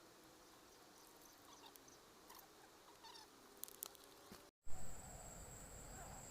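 Faint, short squeaky chirps from a small animal. About four and a half seconds in, the sound cuts to a brief knock, then a steady high-pitched insect buzz, like a cricket, over a low rumble.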